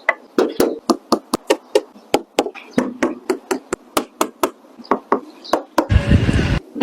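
A fast, uneven run of sharp knocks, about four or five a second, then a short loud rushing burst near the end.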